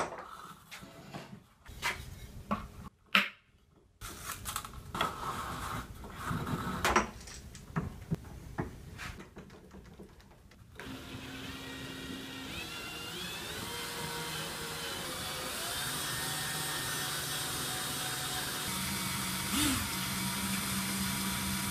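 Knocks and clicks of wooden parts and tools being handled on a workbench during the first half. About halfway in, a cordless drill starts and runs steadily, turning a wooden spool to wind wire onto it. Its pitch steps up a little early on, then holds steady.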